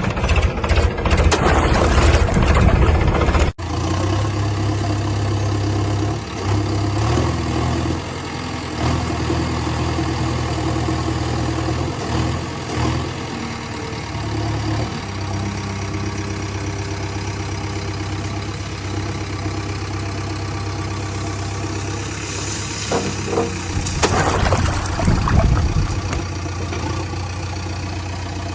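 Heavy diesel machinery at work. An engine runs with a steady low hum and its speed rises and falls a few times. There is loud rough clattering in the first few seconds, which breaks off suddenly, and another burst of clattering later on.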